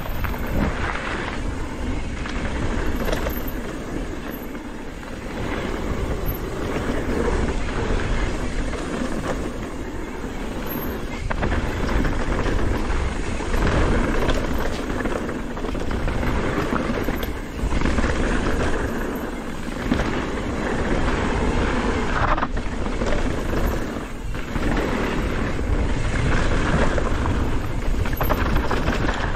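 Mountain bike descending a downhill trail: steady rush of wind on the microphone, with tyres on dirt and the chatter and rattle of the bike over rough ground.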